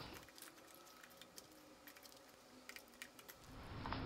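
Near silence with a few faint, scattered light clicks.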